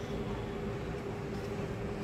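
Steady background hum and hiss with a faint constant tone, unchanging throughout, with no distinct knocks or clicks.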